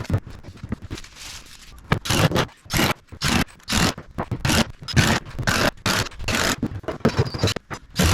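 Repeated rough scraping strokes, irregular, roughly one or two a second, each a fraction of a second long.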